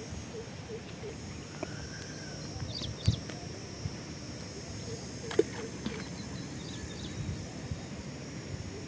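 Outdoor rural ambience: a steady high-pitched drone with a few faint chirps, and two sharp clicks, about three seconds and five and a half seconds in.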